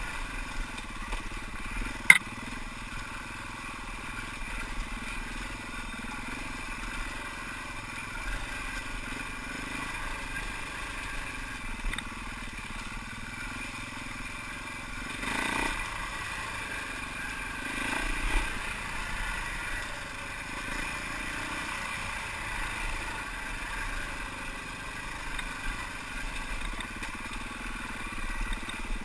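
Husaberg FE 390 single-cylinder four-stroke enduro engine running under way on a trail, revs rising and falling, picked up by a helmet-mounted camera. A sharp knock about two seconds in is the loudest moment.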